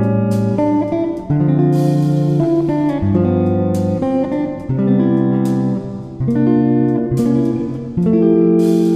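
Background instrumental music: a tune of plucked-string notes and chords that change about every half second to second.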